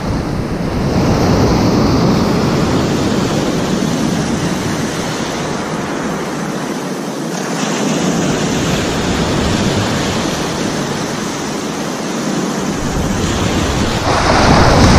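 Sea surf surging and breaking on the shore, with strong wind buffeting the microphone. The surf swells louder near the end.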